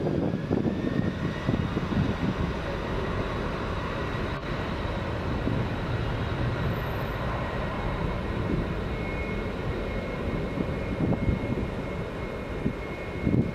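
Boeing 747-400F freighter taking off, its four jet engines at takeoff power: a steady, heavy jet rumble with a thin whine above it that rises a little in pitch within the first two seconds.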